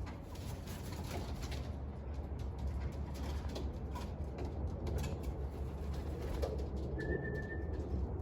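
Racing pigeons cooing, with scattered light clicks and taps and a steady low rumble underneath. Near the end comes one short, steady, high whistle-like tone.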